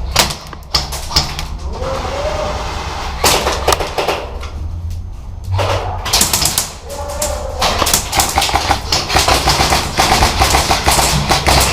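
Airsoft guns firing in rapid full-auto bursts, a fast clatter of shots, densest over the second half.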